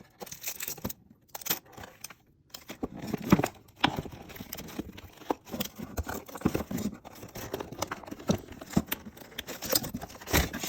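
Product packaging being pulled open and handled by hand: irregular crinkling, tearing and sharp clicks.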